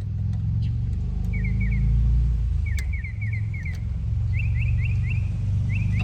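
Steady low rumble of an idling engine, with short bird chirps in quick runs of three to five above it.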